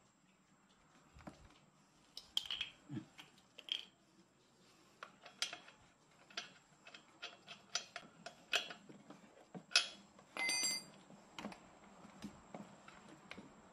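Faint scattered clicks and taps of small metal and plastic parts being handled on a Stihl FR 3000 brush cutter's engine, with a short rattling burst near the end.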